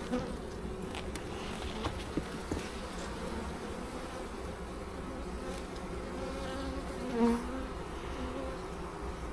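Honeybees buzzing around an open hive, a steady hum, with a louder buzz swelling close by about seven seconds in and a few light clicks near the start.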